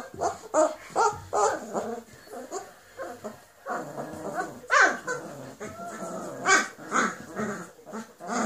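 Very young Irish Wolfhound puppies whimpering in a run of short cries, the loudest about five and six and a half seconds in.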